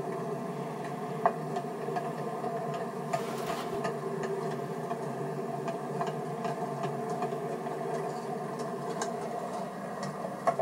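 Miniature railroad train running along the track: a steady mechanical running noise with scattered sharp clicks and ticks, typical of wheels passing over rail joints.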